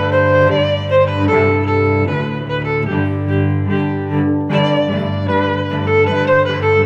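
Background music on bowed strings, with long held notes over a steady low bass line.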